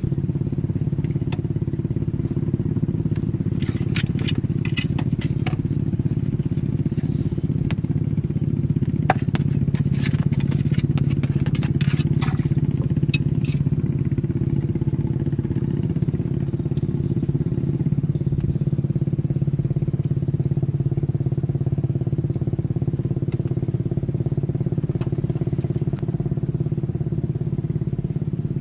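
Small boat engine running steadily at an even speed. Scattered clicks and rattles come over it in the first half.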